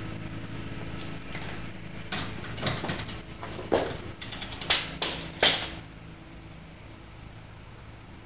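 Hand tools knocking and clanking on metal while rusted hardware under the car is worked loose by hand, without an impact wrench: a run of clicks and several sharp knocks, the loudest three in the middle, then quieter.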